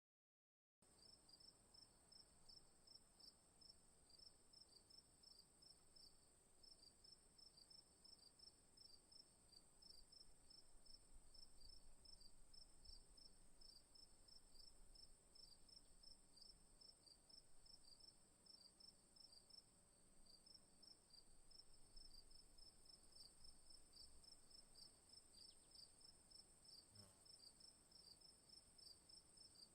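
Crickets chirping, faint: a steady high-pitched trill over a lower chirping that repeats evenly a few times a second, starting just under a second in.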